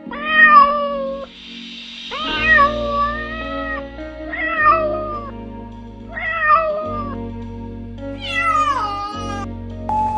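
A domestic cat meowing five times, calls about a second or two apart, the last one longer and falling in pitch, over background music.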